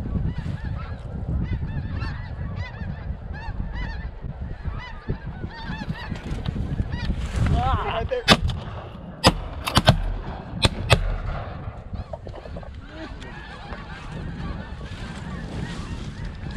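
A large flock of snow geese calling overhead, a constant clamour of high honks. About eight seconds in, shotguns fire a quick volley of about five shots over some three seconds.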